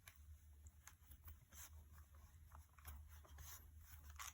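Near silence: a low room hum with a few faint taps and paper rustles from a rubber stamp being pressed down onto card in a stamp press.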